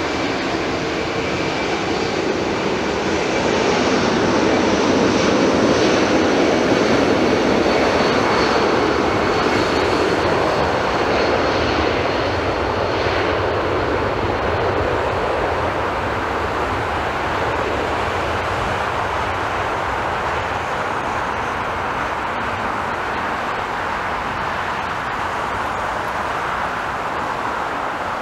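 Jet airliner engines on the runway, from a Southwest Boeing 737 touching down and a Delta jet on its takeoff roll. A steady rushing engine noise with a thin whine at the start swells about four seconds in, then slowly eases.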